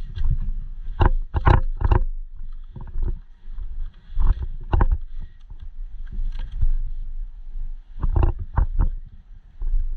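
A series of sharp knocks in groups of two or three, over a steady low rumble.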